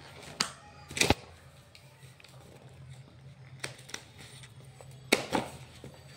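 Ballpoint pen writing on a notebook page: several sharp taps and short scratches, the loudest about a second in, over a steady low hum.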